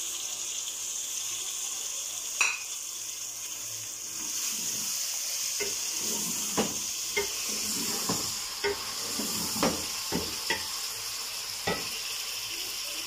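Chicken and onions sizzling in a hot aluminium pot as chopped tomatoes go in, a steady frying hiss. From about five seconds in, a wooden spatula stirs the mix, knocking and scraping against the pot about ten times.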